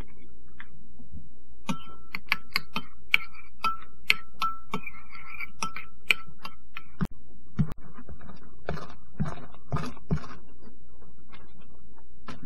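Metal spoon stirring a thick mayonnaise sauce in a small ceramic bowl, clicking against the bowl about two or three times a second with a faint ringing tone. After a brief dropout the strokes turn softer and scrapier. A steady low hum runs underneath.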